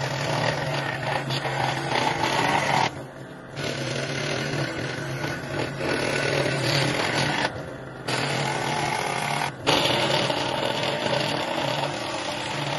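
Electric woodworking power tool running with a steady motor hum while working wood, heard in several segments that cut off and restart abruptly.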